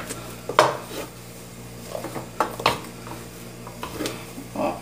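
A spoon stirring a thick, cooked flour dough in a metal pot, knocking and scraping against the pot's side and bottom in about six irregular strokes. The dough is starting to come away from the pot, the stage at which it is nearly done.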